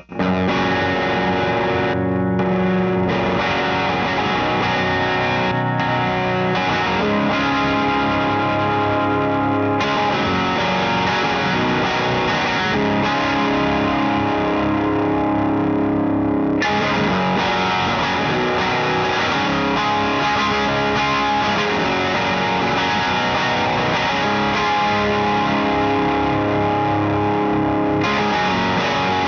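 Overdriven electric guitar, a Rat Rod with an Arcane Inc. Ultratron pickup, played continuously through a Satellite Neutron amp into a Jensen-loaded speaker cab miked with Shure SM57s. The tone brightens about a third of the way in, eases back a little past halfway and brightens again near the end.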